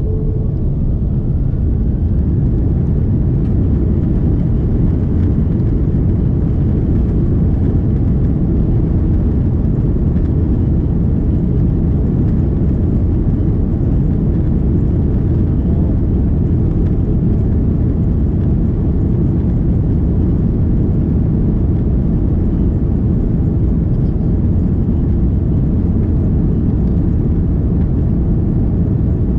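Steady low rumble inside the cabin of an Airbus A330-300 as it taxis, with the jet engines running at low thrust.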